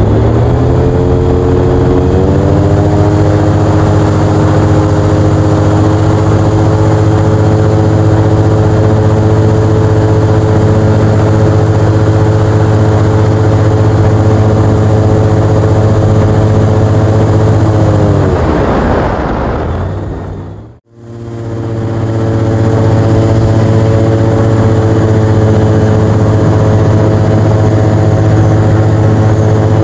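Airboat's engine and big air propeller running loud and steady. The pitch falls about two-thirds of the way through, the sound cuts out for a moment, then returns and climbs again near the end.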